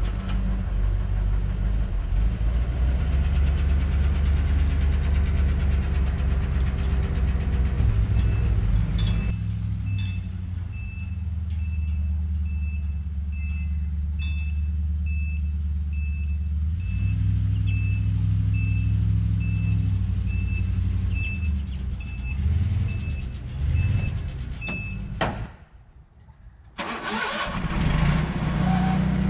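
Ford E350 van engine running as the van is driven and repositioned. For much of the middle a high beep repeats about once a second, and the sound drops out briefly near the end.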